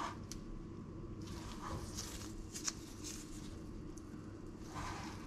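Metal spoon spreading thick meat sauce over lasagna sheets in a frying pan: soft wet squishing and scraping, with a sharp tap about two and a half seconds in, over a steady low hum.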